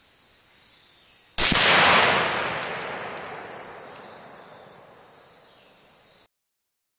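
A single loud gunshot about a second and a half in, with a long tail that dies away over about four seconds.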